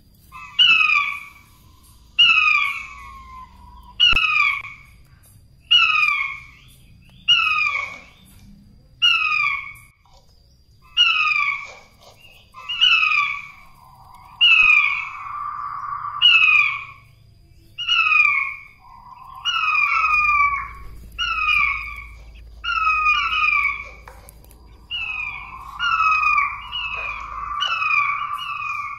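King quail (blue-breasted quail) lure call: a loud, short run of falling whistled notes, repeated about every second and a half to two seconds. A lower steady note sometimes runs beneath the calls.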